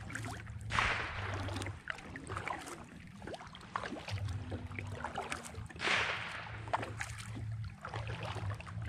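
Kayak paddle strokes in the water: two swishing splashes about five seconds apart, with small sharp knocks and drips in between.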